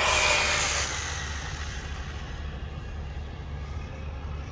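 ZD Racing Thunder B-10E brushless RC buggy driving past on asphalt: motor whine and tyre noise are loudest in the first second, then fade as it pulls away. A steady low rumble runs underneath.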